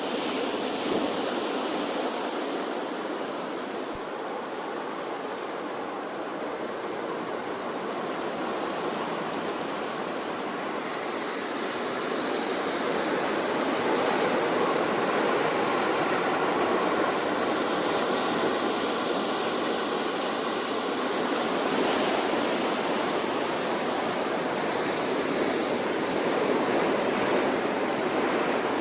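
Ocean waves washing onto a shore, a steady rushing surf that swells slowly louder about halfway through and again near the end.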